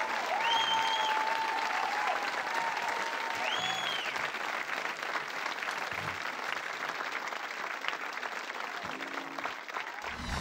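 Studio audience applauding, the clapping thinning a little towards the end.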